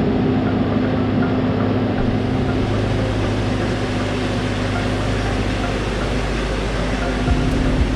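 Machinery running steadily: a constant low hum under an even rushing noise, with no change in speed.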